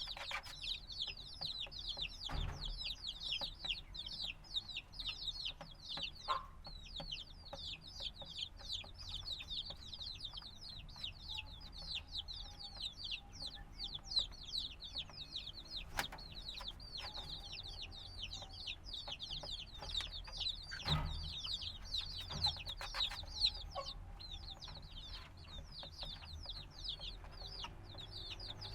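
A brood of chicks a few days old peeping continuously, many short high chirps overlapping in a dense chatter, with a few soft knocks and thumps scattered through.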